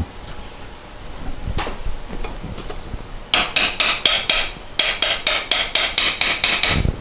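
Hammer tapping on a Porsche 912 pedal cluster as the pedal tube is knocked home through its new bushings: two quick runs of sharp taps, several a second, starting about three seconds in.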